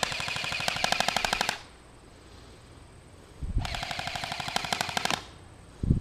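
Modified G&G Combat Machine electric airsoft rifle firing on full auto, hip fired, in two bursts of about a second and a half each, with a pause of about two seconds between them; the gearbox cycles rapidly with a buzzing whine under the shots.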